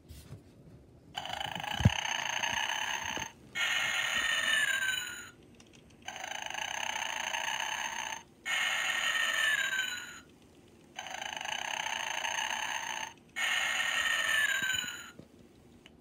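Gemmy 1995 animated snoring Easter bunny toy playing its snore sound three times: each cycle a raspy inhaling snore of about two seconds, then a whistling exhale that falls in pitch, with short pauses between. A single click sounds about two seconds in.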